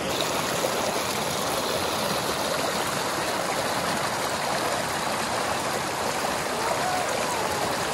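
Shallow rocky creek running steadily, water rushing over stones in small riffles.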